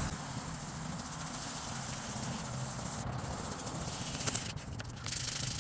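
Hand sanding of a plastic headlight lens with 1,000-grit sandpaper: a steady rubbing hiss that breaks off briefly about three seconds in and again near the end.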